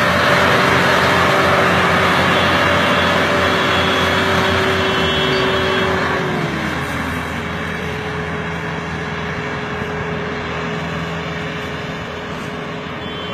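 Massey Ferguson 385 tractor's four-cylinder diesel engine working hard under a heavy sugarcane load, its steady note dropping in pitch about six seconds in. It then grows gradually fainter as the tractor pulls away.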